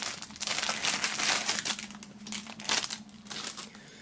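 Clear plastic film crinkling and crackling as it is pulled off a folded cloth flag by hand. The crinkling is dense for about three seconds, then thins out into a few quieter crackles.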